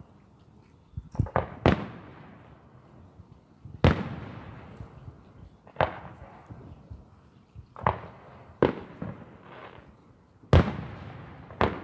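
Aerial firework shells bursting in the sky: about nine sharp bangs at irregular intervals a second or two apart, each followed by a fading echo.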